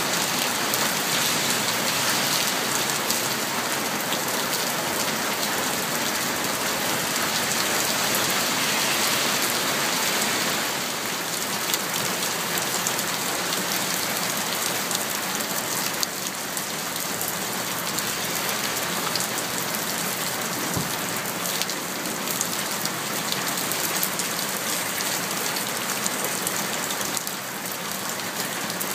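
Heavy rain falling steadily, streaming off a fabric awning and splashing into water running over the ground, with a dense patter of drops throughout.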